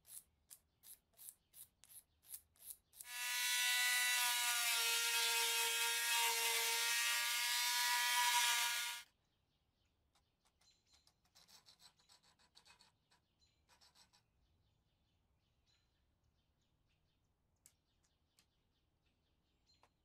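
Quick, even strokes of a small brass-bristled brush scrubbing a small metal part, about three a second. About three seconds in, a loud steady motor whine takes over for about six seconds and stops suddenly. After it comes faint rubbing of sandpaper on a threaded steel rod.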